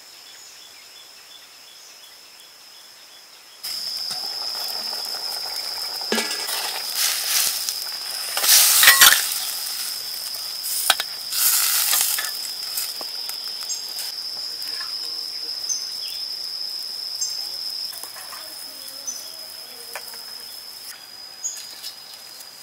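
Liquid sizzling in a hot steel wok over a wood fire while a metal ladle scrapes and clinks against it, with two louder surges of sizzle about eight and eleven seconds in. A steady high-pitched insect drone runs underneath once the sound comes in after a quiet first few seconds.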